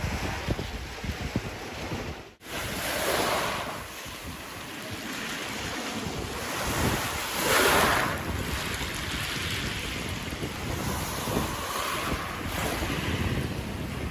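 Sea waves washing onto the shore, swelling up a few times, with wind buffeting the microphone. The sound breaks off briefly about two seconds in.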